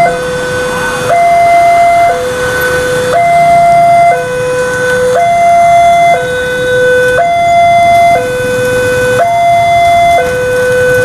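Railway level-crossing warning alarm: an electronic two-tone signal, alternating low and high notes of about a second each, repeating steadily, sounding while the barrier is down ahead of a train movement.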